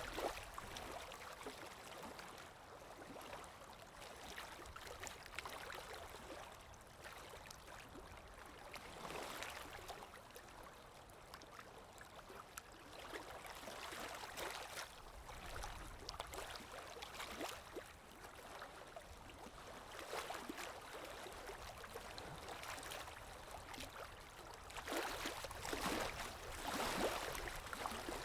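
Water flowing and lapping, an even rush that swells and eases irregularly, louder for a few seconds near the end.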